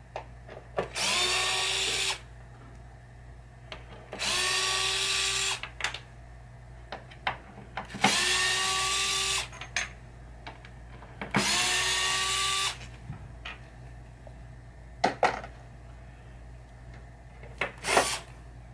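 Cordless screwdriver backing screws out of a wooden pinball playfield in four short runs of a second or so each, the motor whirring up to speed at the start of each run. Light clicks and knocks of parts being handled come in between.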